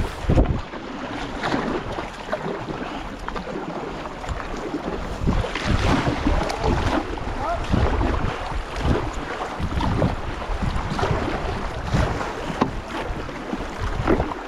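Canoe paddles stroking through river water with irregular splashes, and wind buffeting the microphone.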